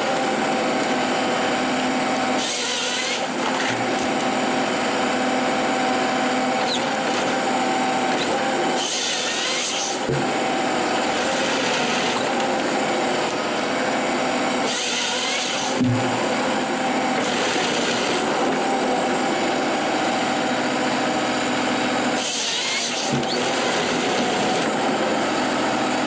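Forestry harvester running steadily under load, its engine and hydraulics holding a constant hum as the head feeds a conifer trunk through. Four short bursts of the head's chain saw cutting the trunk into logs come roughly every six seconds.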